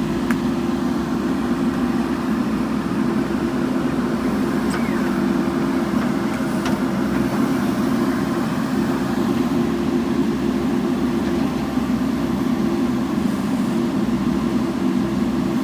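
JCB backhoe loader's diesel engine running steadily, with a couple of faint clicks.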